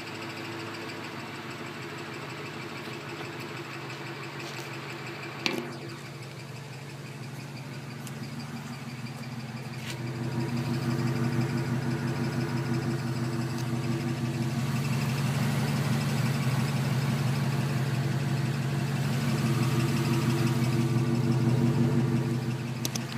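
Stock exhaust of a 2003 Ford Mustang Mach 1's 4.6-litre V8 idling steadily, louder and heard close up at the tailpipe from about ten seconds in. A single sharp knock about five seconds in.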